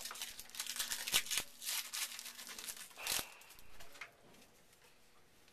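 A football card pack's wrapper being torn open and crinkled: a quick run of tearing and rustling for about four seconds, then only faint handling.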